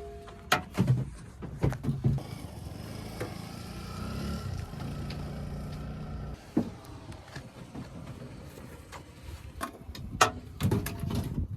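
Diesel engine of heavy machinery running, louder and steadier for a few seconds in the middle, with scattered metallic knocks and clicks.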